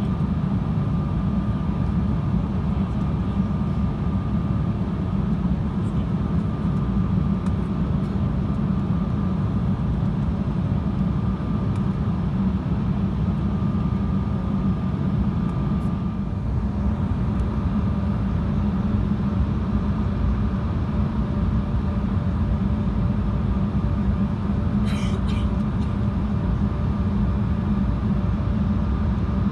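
Steady cabin noise of a twin-engine jet airliner in flight, heard from a window seat by the wing: an even low rumble of engines and airflow with a faint steady whine. Near the end there is one brief faint clink.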